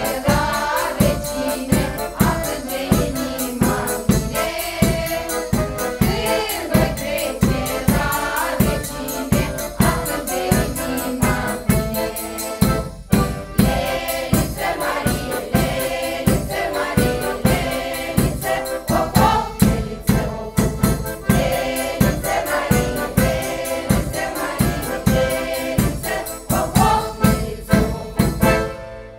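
Women's folk choir singing, accompanied by a piano accordion and a large frame drum struck with a beater at about two beats a second. The song stops just before the close.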